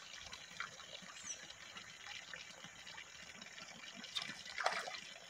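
Faint steady outdoor hiss, then near the end two short splashes as a hooked tilapia is pulled up out of the pond.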